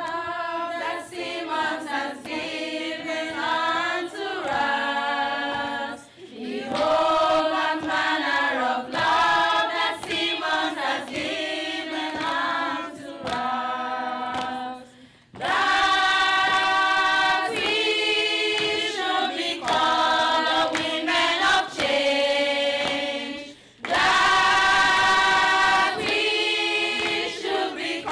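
A group of women singing together without accompaniment, in several phrases with held notes, broken by short pauses.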